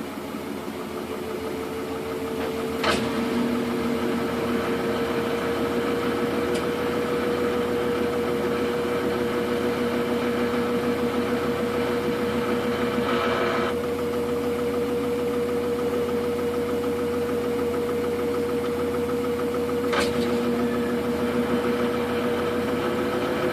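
Samsung washing machine spinning a load of duvets in its spin cycle: a steady motor whine and drum hum that builds over the first few seconds, then holds, with two sharp clicks.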